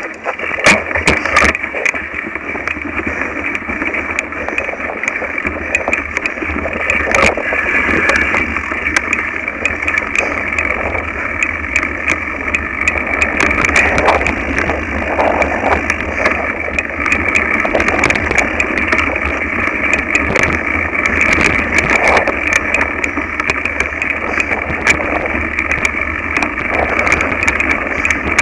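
Mountain bike ridden along a bumpy dirt trail, picked up through a handlebar-mounted camera: a steady rumble of tyres and frame vibration with frequent rattles and knocks as the bike goes over bumps.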